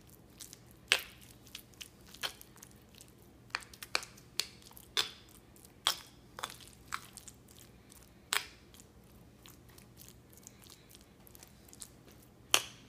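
Metal spoon mixing guacamole in a stone molcajete, knocking and scraping against the stone in irregular clinks, the loudest about a second in and just before the end.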